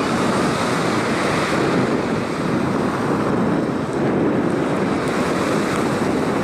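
Ocean surf washing onto the beach, a steady rush with wind buffeting the microphone.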